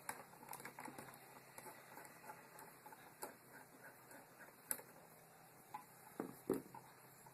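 Faint scattered clicks and ticks of a screwdriver working the terminal screws on a wall light switch, with a few sharper taps in the second half.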